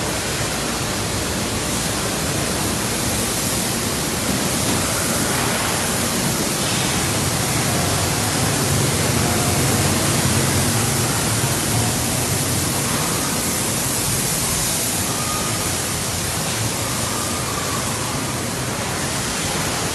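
Steady, loud hiss-like noise of a bus assembly hall, even across the range and unbroken, with faint short whines from tools late on.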